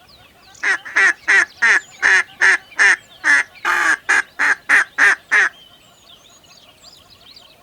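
A duck quacking: a fast run of about fourteen short, loud quacks, roughly three a second, stopping after about five seconds.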